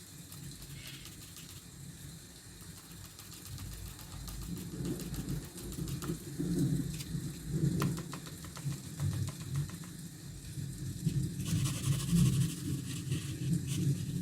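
Rain falling, with a low rumble underneath that swells and fades and grows louder after a few seconds.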